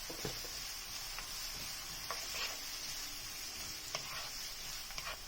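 Diced onion and garlic sizzling as they sauté in hot oil, stirred in the pan, with a few light utensil clicks and scrapes.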